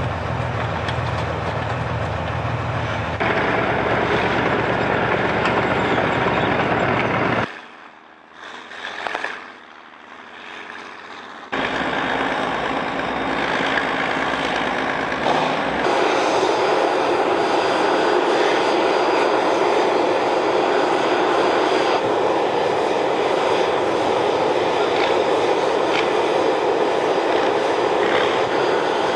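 Heavy military vehicles' engines running steadily. The sound drops away sharply for about four seconds a quarter of the way in, then returns as a steady, fuller engine noise.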